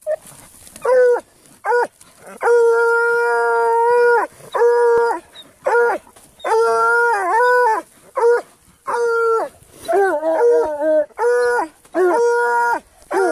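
Hounds baying at a fox den: a run of loud, drawn-out bays, some held for a second or two, between short yelping barks, with a wavering, overlapping call near the middle.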